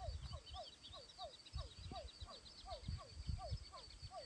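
A wild animal calling over and over, about three short falling notes a second, with fainter high-pitched chirping above.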